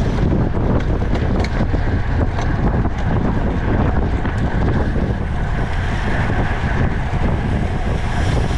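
Wind buffeting the microphone of a camera riding on a racing road bike at speed: a steady, loud low rumble of rushing air.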